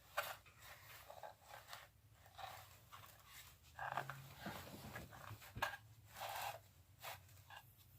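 Faint rustling and light clicks from small parts and wires being handled, with a brief low hum about four seconds in.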